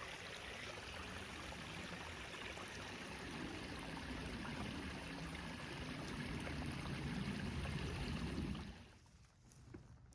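Small mountain stream running: a steady rushing of water that cuts off abruptly about nine seconds in.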